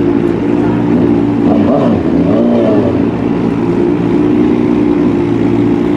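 Drag-racing motorcycle engines idling, a turbocharged Suzuki Hayabusa and a Kawasaki Ninja H2, with a short throttle blip that rises and falls about two and a half seconds in.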